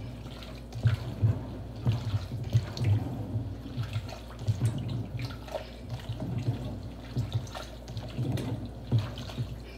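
Water sloshing in a large enamel stockpot as it is stirred, in irregular swishes with soft low knocks two or three times a second.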